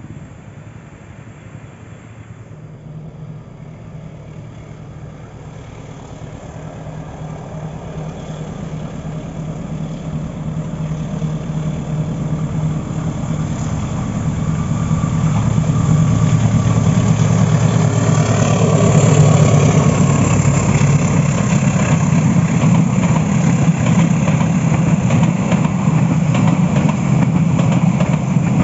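Diesel locomotive engine running with a steady low drone that grows louder as the train approaches, reaching full loudness about halfway through as the train passes close by.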